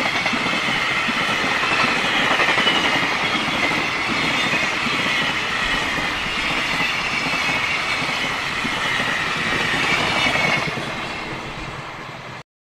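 A freight train of container flat wagons, mostly empty, rolls past: a steady clatter and rumble of wheels on the rails, with a wavering high-pitched squeal over it. It fades away in the last couple of seconds as the end of the train goes by.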